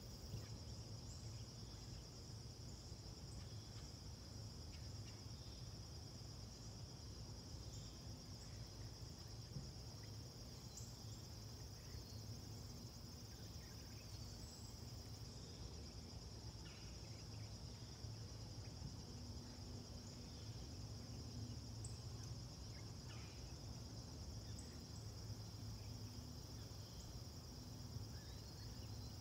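Faint outdoor ambience: a steady high-pitched insect chorus that doesn't let up, over a low background rumble.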